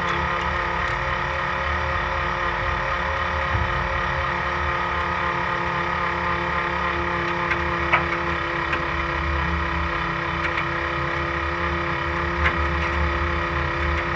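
Off-road race car's engine running at a steady speed, heard from inside the car, with an uneven low rumble and a couple of short knocks.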